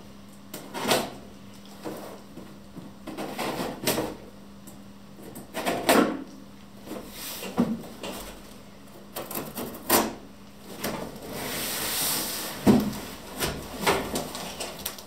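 A large cardboard box being handled and set down on a wooden table: scattered knocks, bumps and scrapes at irregular times, and a longer rasping scrape about eleven seconds in.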